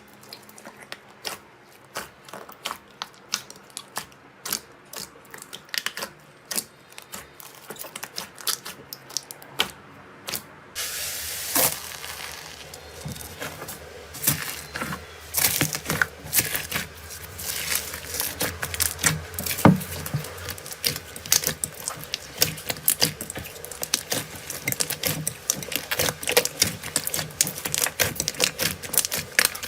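Slime being squeezed and pressed by hand, with sharp sticky pops and clicks a couple of times a second. About eleven seconds in, the sound changes to dense crackling over a steady hiss, as of crunchy slime being worked.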